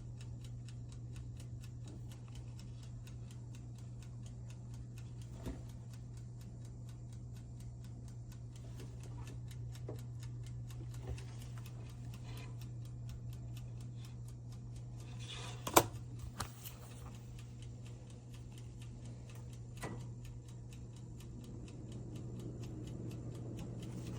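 Countertop convection toaster oven running: a steady low hum, with its mechanical timer ticking quickly and evenly throughout. A handful of louder clicks stand out, the sharpest about 16 seconds in.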